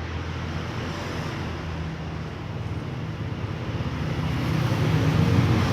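Steady road traffic noise with a low engine hum, growing louder about four seconds in.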